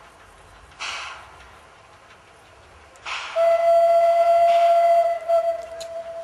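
Steam locomotive's whistle blowing one long steady note for about two and a half seconds, starting about three seconds in. A short hiss about a second in, typical of a steam exhaust beat.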